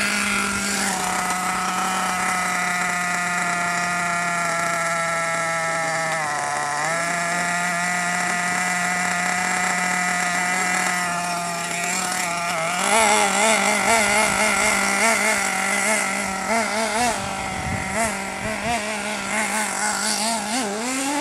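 Hobao Hyper 8.5 RC buggy's small nitro engine idling with a steady high buzz, sagging briefly about six seconds in. From about thirteen seconds it wavers up and down in pitch with quick throttle blips as the buggy is driven off, and it revs up near the end.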